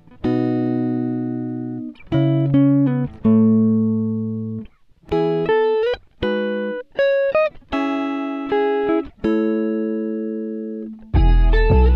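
Background music of plucked guitar chords, each struck and left to ring and fade, with a fuller bass sound coming in near the end.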